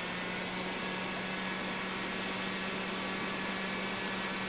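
HP 3561A dynamic signal analyzer running just after power-on: a steady cooling-fan rush with a constant hum and several faint, steady high tones.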